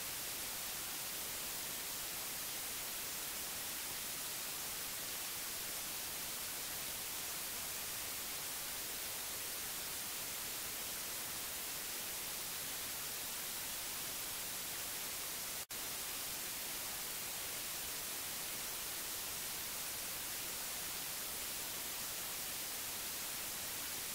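Steady television static hiss, an even bright rushing noise with no tone in it. It drops out for an instant about two-thirds of the way through, then carries on unchanged.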